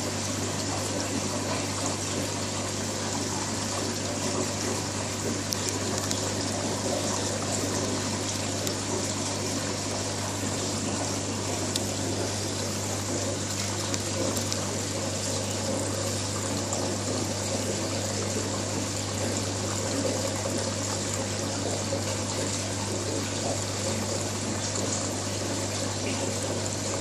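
Marine aquarium running: a steady low pump hum under the even rush and trickle of water circulating through the tank's overflow.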